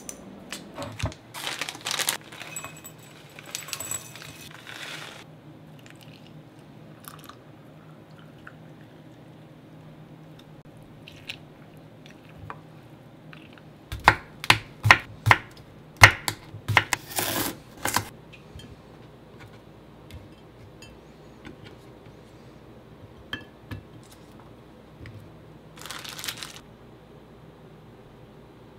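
Kitchen knife chopping through a cucumber on a wooden cutting board: a quick run of about a dozen sharp chops, roughly three a second, the loudest sounds here. Lighter handling clicks and rustles come in the first few seconds, and a short crinkle of a plastic bag near the end.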